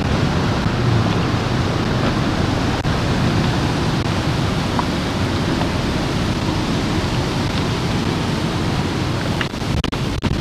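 Steady rushing splash of a large fountain's falling water, with cars passing on the road. Near the end the sound cuts in and out briefly several times.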